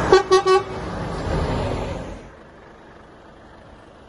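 Truck horn giving three quick toots as the truck and trailer combination drives past on gravel. The driving noise drops away sharply a little over two seconds in.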